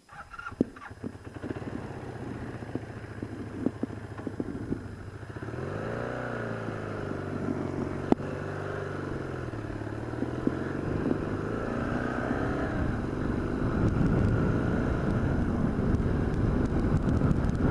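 Vehicle engine running as the vehicle pulls away and picks up speed, its pitch rising and falling in the middle. Wind and road noise build over the last few seconds, with a few sharp knocks early on.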